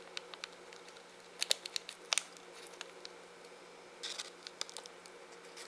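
Light, scattered clicks and brief rustles of small plastic items being handled as glitter is added to a small plastic cosmetic jar of gel, over a faint steady hum.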